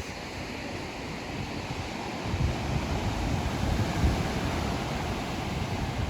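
Ocean surf washing onto a beach, a steady rushing wash that swells about two seconds in, with wind gusting on the microphone underneath.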